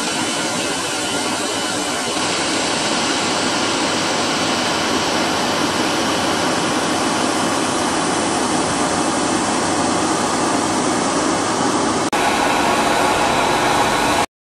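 Hair dryer running steadily as the blower of a homemade charcoal forge, pushing air through a PVC pipe into the fire: a loud, even rush of fan and air noise. About twelve seconds in it drops out for an instant and comes back a little louder, then cuts off abruptly near the end.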